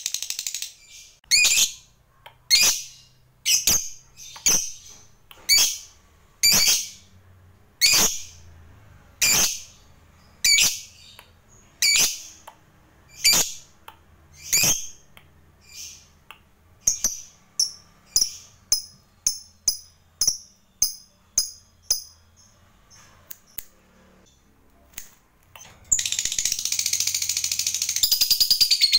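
Lovebird giving sharp, single high chirps about one a second, then quicker runs of chirps. Near the end it breaks into a continuous long chattering trill, the 'ngekek' that lovebird keepers prize.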